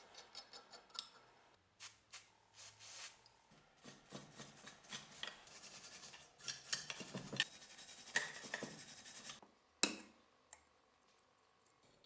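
Metal on metal: a flat steel tool scraping and rubbing against the rusty tank and fittings of an old gasoline blowtorch, in a dense run of strokes through the middle. Scattered small clicks of metal parts being handled come before it, and a single sharp knock follows near the end.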